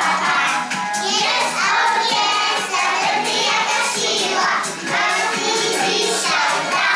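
A group of young children singing a song together, with musical accompaniment under their voices.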